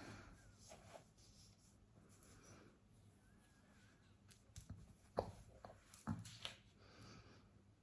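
A few quiet, short hiccups, the sharpest about five seconds in and two more about a second later, in an otherwise near-silent room.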